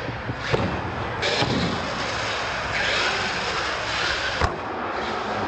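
R/C monster truck running and jumping on a concrete floor, its drivetrain and tyres making a steady noise, with a hard landing thud about half a second in and another about four and a half seconds in.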